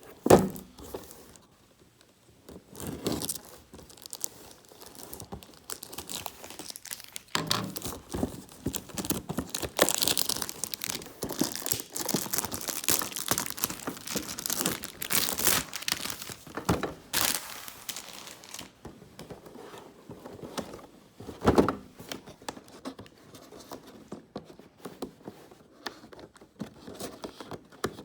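Plastic packaging crinkling and tearing as it is unwrapped by hand, in irregular bursts that are busiest through the middle, with a few sharper crackles and knocks.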